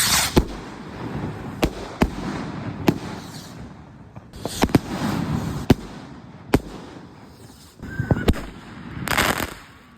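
Fireworks going off: a string of sharp bangs, irregularly spaced about a second apart, with bouts of crackling hiss between them.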